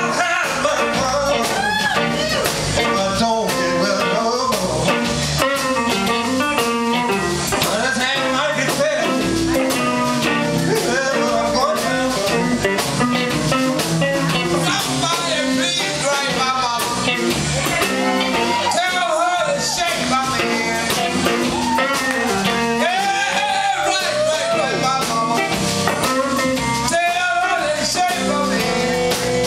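Live blues band playing: electric guitars, bass and drums, with a woman singing.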